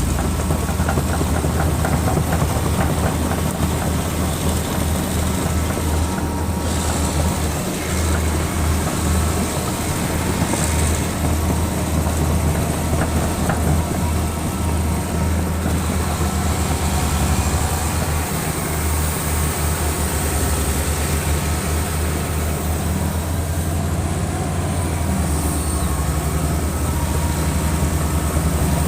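Excavator engine running steadily, with a low drone throughout.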